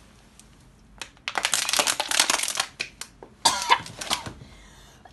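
A girl coughing and spluttering, choking on water that went down her windpipe: a dense fit of coughs starts about a second and a half in, and a shorter one follows near four seconds.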